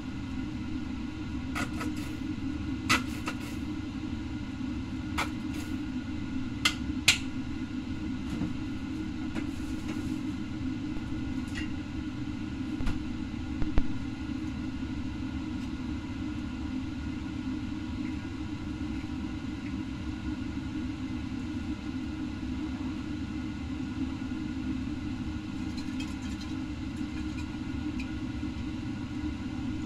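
Steady low kitchen rumble, with a few sharp clicks and knocks from sauce bottles and utensils being handled over a pan of noodles, mostly in the first half.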